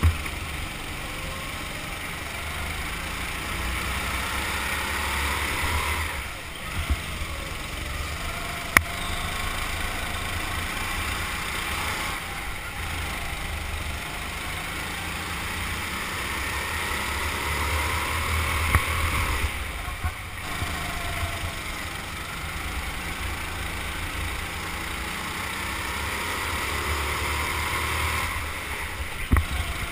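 Go-kart heard from onboard while lapping: its motor note rises in pitch along each straight and drops off for the corners, about every seven seconds, over a low rumble.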